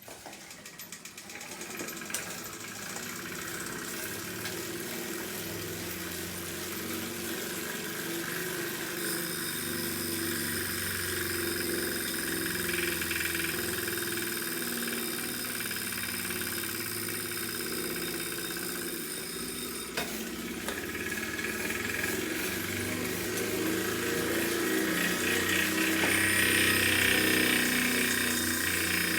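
Wahoo Kickr smart bike trainer running with an abnormal mechanical noise: a steady whir carrying several tones, growing louder over the stretch, with a sharp click about twenty seconds in.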